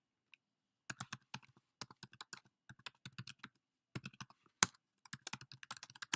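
Rapid, irregular clicking and tapping, several sharp clicks a second, starting about a second in, with one louder, sharper click a little past the middle.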